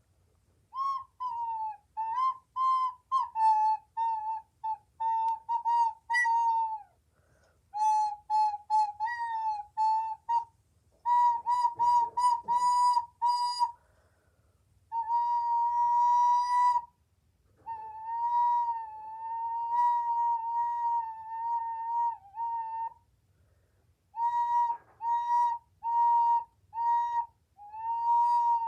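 Recorder played in runs of short, separately tongued notes that stay on nearly the same pitch, with a few longer held notes and short pauses between phrases.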